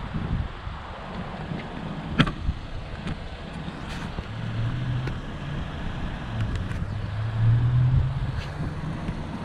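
Low hum of a motor vehicle engine running, swelling about eight seconds in, over wind rumble on the microphone. A single sharp click comes about two seconds in.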